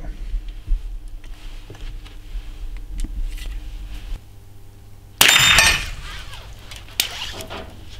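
A single suppressed .22 LR shot from a Chiappa Little Badger rifle about five seconds in: a sudden sharp crack with a brief metallic ring, as of a bullet striking a steel gong. A faint click follows near the end.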